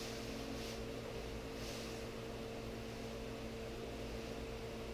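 A steady hum holding one even tone, over a faint hiss, with two soft brushing sounds in the first two seconds.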